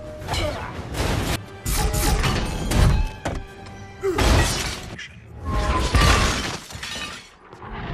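Action-movie fight soundtrack: music under a string of heavy hits and crashes, with glass shattering, as armored robots are smashed.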